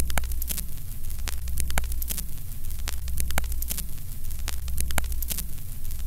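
Steady low electrical hum mixed with static hiss and irregular sharp crackles and clicks.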